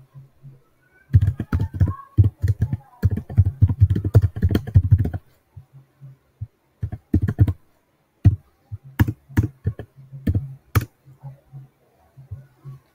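Typing on a computer keyboard: a rapid run of keystrokes for about four seconds, then a pause and a few single, sharper clicks.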